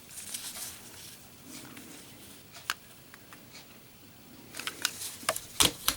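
Light clicks and taps of metal Zippo lighters being handled: a single click near the middle, then a quick run of small clicks and knocks near the end.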